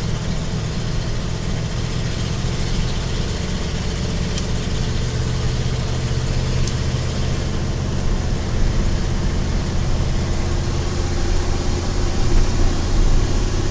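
A 1986 Ford F250's 351 Windsor 5.8-litre V8 running steadily as the truck drives along, growing a little louder about halfway through.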